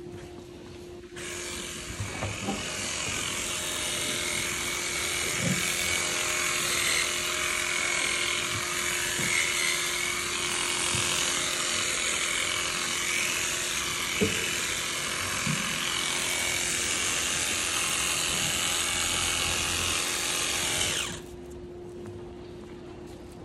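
A small cordless power tool runs steadily while held to a cow's lower leg: a high, even whir that starts about a second in and stops a couple of seconds before the end. A faint steady hum lies underneath.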